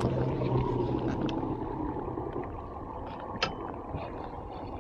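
Boat engine running, with a steady hum under a wash of water and wind noise; the hum eases off about two seconds in. A sharp click about three and a half seconds in.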